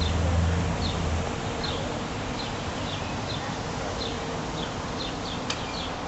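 A small bird chirping again and again, short high chirps at uneven intervals, over steady outdoor background noise. A low engine rumble is heard in the first second.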